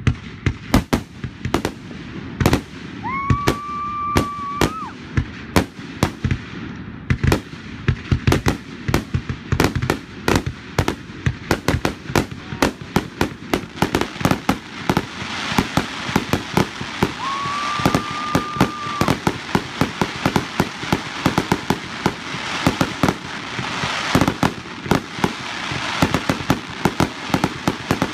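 Aerial fireworks shells bursting in rapid, dense succession: sharp bangs several times a second, growing denser with a continuous crackling fill from about halfway.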